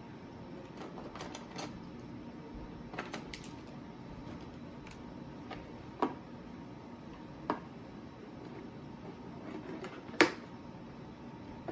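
Scattered clicks and knocks of small hard objects and a hard plastic case being handled and set down. Three sharper knocks stand out, about six and seven and a half seconds in and the loudest about ten seconds in.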